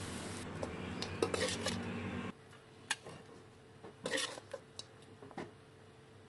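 Metal spatula scraping and clinking against an aluminium wok as stir-fried chicken is scooped out, in a few separate strokes. A low steady hum underneath cuts off a little over two seconds in.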